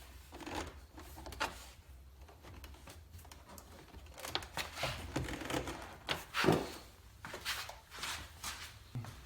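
Plastic door trim panel of a Chevy Impala being handled and pushed into place on the door, with scattered knocks, rubs and clicks of the panel and its clips; the loudest knock comes about six and a half seconds in.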